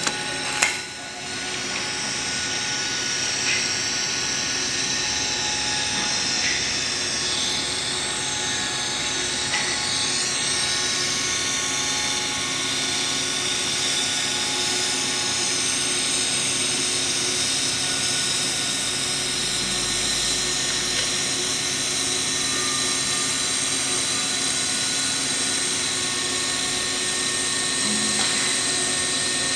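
TIG welding arc on the root pass of a steel pipe joint: a sharp crack about a second in, then a steady hiss with a faint whine as the filler rod is fed in.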